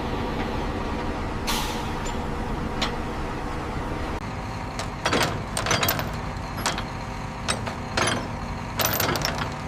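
Heavy factory machinery running with a steady hum. About a second and a half in comes a short hiss like released air, and from about five seconds on there are a series of sharp clanks and knocks.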